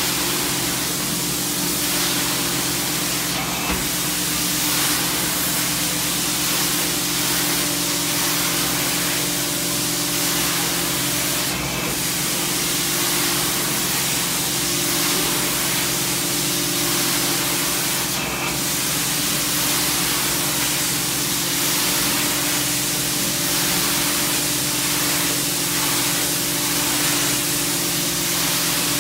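Truckmount carpet-cleaning wand spraying hot water into the carpet and sucking it back up: a loud, steady hiss of spray and rushing vacuum air, with a steady hum underneath.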